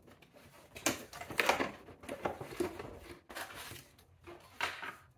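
Cardboard box being opened by hand: a few short rustles and scrapes as the flaps are lifted and pulled.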